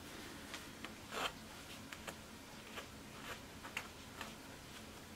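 Seam ripper and fingers working at the stitching of a fabric panel: faint, irregular small ticks and short scratches, roughly two a second, the loudest a brief scratch about a second in.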